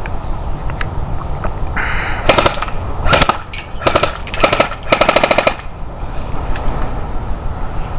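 Airsoft AK rifle firing five short full-auto bursts of rapid clicks over about three and a half seconds, starting about two seconds in; the last burst is the longest.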